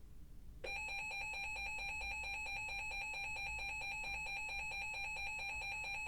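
Electronic emergency alert tone from a weather alert broadcast. It comes on abruptly just under a second in and holds steady with a fast pulse, marking the start of the next weather warning.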